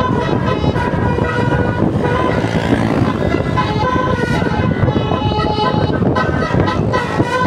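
Basuri-type telolet musical horn on a tour bus playing a tune of quick changing notes over steady road and engine rumble, with a short break in the notes around two to three seconds in.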